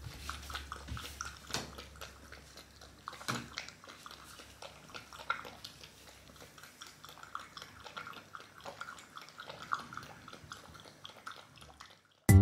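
Mini corgi puppy eating from a wooden bowl: irregular small clicks and chewing sounds, a few a second, as its mouth works in the bowl.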